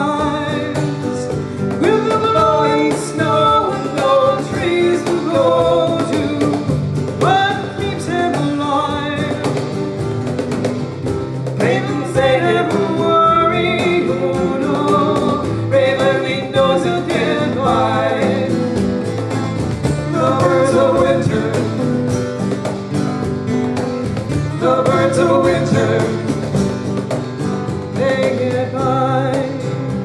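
Live Americana band playing a song: a woman sings lead over electric bass, two acoustic guitars and a cajon.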